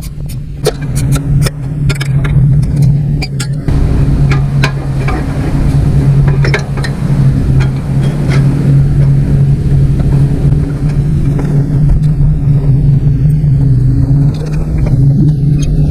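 Small engine running steadily at an even speed with a low hum, likely the zero-turn mower's engine just after a carburetor swap. Sharp metallic clicks and taps sound over it during the first few seconds.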